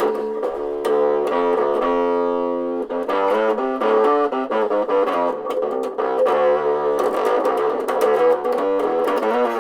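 Encore electric bass guitar played through a tiny portable amp: a run of picked notes, thin-sounding, with little deep low end from the small speaker.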